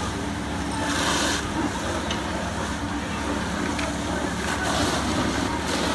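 Fire engines running with a steady, droning hum, under a constant noisy background; a hissing rush swells about a second in and again near the end.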